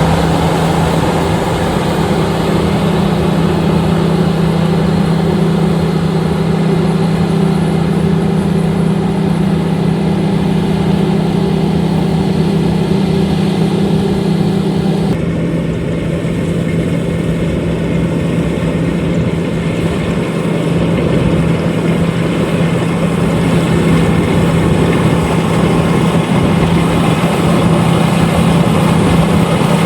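LOVOL RG130EVO rice combine harvester running steadily, its engine hum under a dense clatter of machinery. About halfway through the sound changes abruptly, with part of the hum and the higher noise dropping away.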